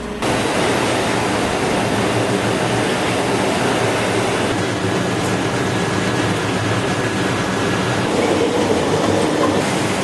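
Grape sorting line machinery at a winery running: the sorting table and conveyor give a steady, dense mechanical clatter.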